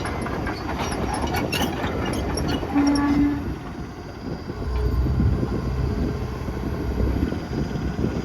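John Deere 160D excavator's 4.5-litre diesel running with its hydraulics working, with sharp knocks in the first two seconds as the bucket and thumb handle concrete. A brief steady tone sounds about three seconds in, and the engine's low rumble gets heavier from about five seconds in.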